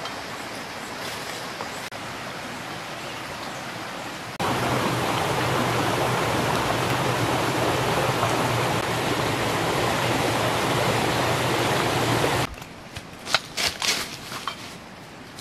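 A steady rushing noise, much louder from about four seconds in until about twelve seconds in, with a low hum under it. After it cuts down, footsteps crunch and snap on dry leaves and twigs.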